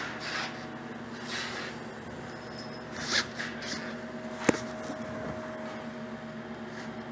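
Steady hum of a powered-up Metkon FORCIPOL 1V grinder-polisher with its FORCIMAT specimen mover. A few brief rustles break in, and one sharp click comes about halfway through.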